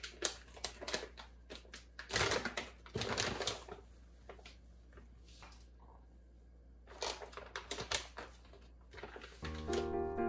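Crinkling and rustling of a large plastic bag of dried bonito flakes being opened and handled, in irregular bursts with sharp clicks, with more handling noise about seven seconds in. A piano melody comes in near the end.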